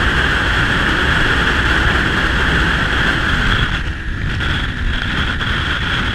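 Wind rushing over a motorcycle-mounted camera at highway speed, over the low drone of the bike's engine and tyres. The rush is steady, easing briefly about four seconds in.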